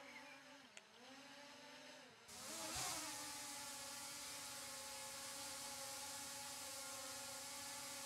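Autel EVO Nano Plus mini quadcopter's motors and propellers whining as it climbs, the pitch dipping and recovering in the first few seconds, then settling into a steady multi-tone hover whine that grows louder a little over two seconds in.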